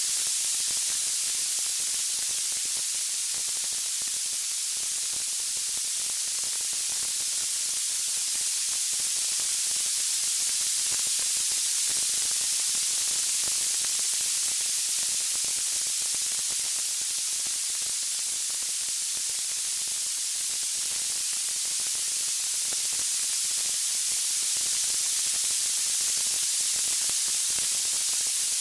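Steady, high-pitched hiss of white noise, even throughout, with no crackles or pops.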